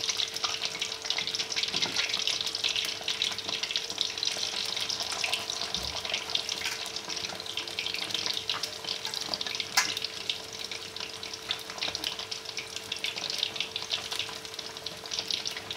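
Spice-coated fish pieces frying in hot oil in a wok: a steady, dense sizzle and crackle of bubbling oil as the fish is half-fried. One sharper pop about ten seconds in.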